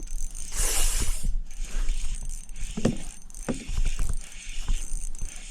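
Fishing reel being cranked with clicks and knocks while a hooked bass is fought, with a short rushing burst about a second in.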